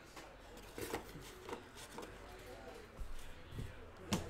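Trading cards and packs being handled on a table: a few light taps and clicks, with a sharper knock near the end.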